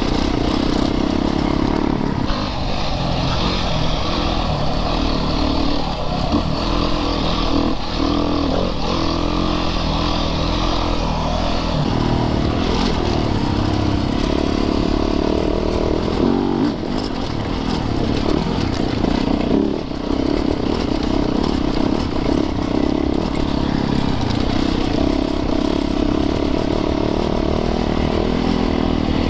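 Yamaha YZ450FX dirt bike's single-cylinder four-stroke engine running hard on the trail, its pitch rising and falling as the throttle opens and closes through the gears.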